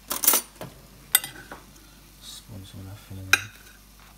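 Metal spoon clinking and scraping against a ceramic plate while digging into pie filling: three sharp clinks, the loudest right at the start, another about a second in and one about three and a half seconds in.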